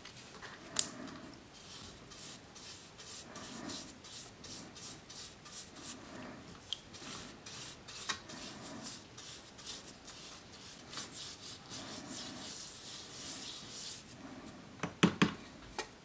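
A bristle brush scrubbing the rusty steel shell of a German WWII M42 helmet, wet with oxalic acid solution, in repeated scratchy strokes. A few sharp knocks near the end are the loudest sounds.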